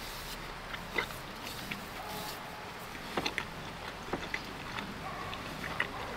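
Close-miked chewing and biting of pizza, with scattered crisp crackles and mouth clicks.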